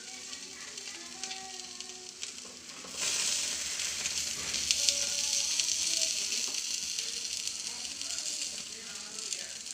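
Fish in a coconut-milk spice paste sizzling on a hot grill pan; the sizzle grows louder about three seconds in.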